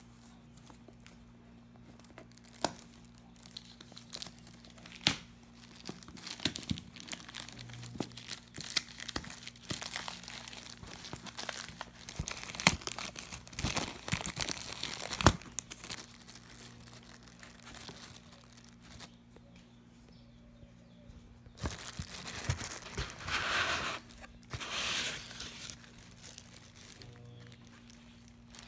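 A plastic mailing bag being torn open by hand, then plastic wrap and foam packing handled, with irregular crinkling and rustling and a few sharp rips. A louder stretch of crinkling comes a little past two thirds of the way in.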